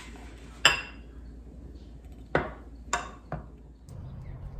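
Four sharp clinks and knocks of breakfast dishes, ceramic bowls and a glass milk bottle, being set and shifted on a wooden serving tray; the first is the loudest. Near the end the sound cuts to a steady low background hum.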